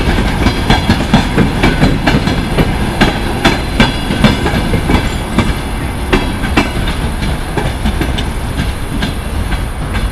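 Passenger coach wheels clicking over rail joints as the train rolls past: a rapid, uneven clickety-clack over a steady rumble. It fades a little after about halfway as the last coaches draw away.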